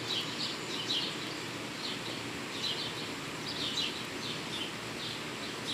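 Birds chirping outdoors: short, high chirps at irregular intervals, about one every second or so, over a steady background hiss.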